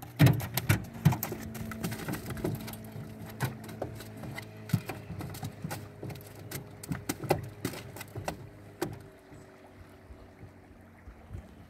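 Irregular knocks, clunks and rattles in an aluminium fishing boat as a freshly landed fish is handled and knocks against the hull and gear, growing sparser near the end, over a faint steady hum.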